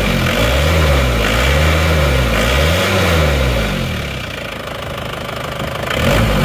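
Isuzu direct-injection diesel engine running, revved up and down three times in quick succession, settling to idle, then revving again near the end. It sounds fairly good and not rough, which the mechanic takes to mean it shows no real blow-by and needs no overhaul yet.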